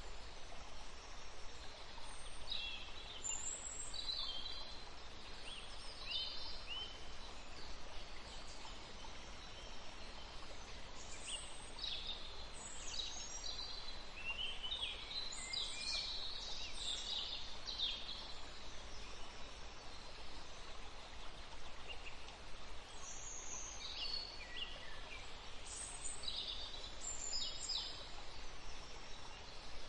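Small birds chirping: clusters of short, quick, high calls, busiest in the middle and again near the end, over a steady faint hiss.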